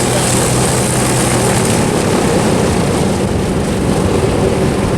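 P-51 Mustang's V12 piston engine running as the fighter taxis in, a steady propeller drone.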